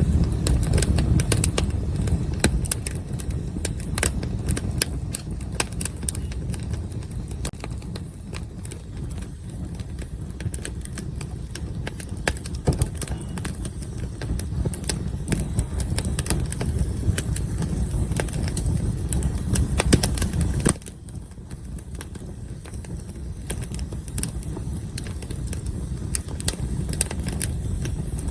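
Wood campfire burning, with irregular sharp crackles and pops over a low steady rumble. The rumble drops suddenly about 21 seconds in, and the crackling goes on.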